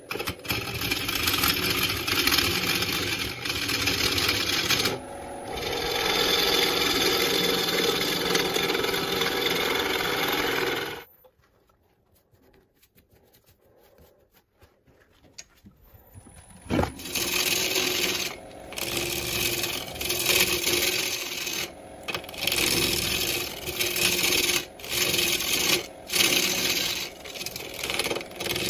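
Wood lathe spinning a segmented, multi-coloured wood bowl blank while a gouge cuts into it: a rough, steady scraping and rubbing of the tool on the wood. About eleven seconds in the sound drops to near silence with the lathe stopped. It resumes about six seconds later and is broken by short gaps.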